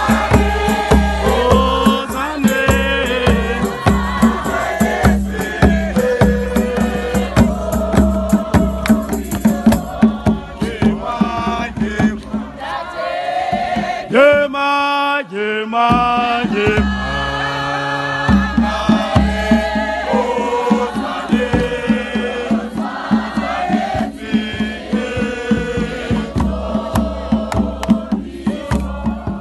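Crowd singing a hymn together, backed by djembe hand drums beating a steady rhythm. About halfway through, the drums stop for a few seconds while the singing carries on alone, then the drumming comes back in.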